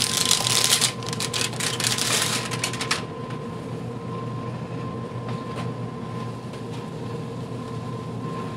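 Plastic wrapping on a refrigerated rolled pie crust crinkling and crackling as it is pulled off, stopping about three seconds in. A steady appliance hum with a faint constant tone runs underneath and is left on its own after that.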